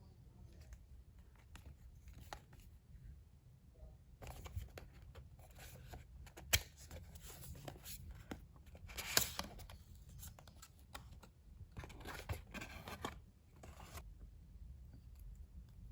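Package being opened by hand: plastic and paper packaging rustling and tearing in irregular bursts, with a sharp click about halfway through and a louder tear a little after.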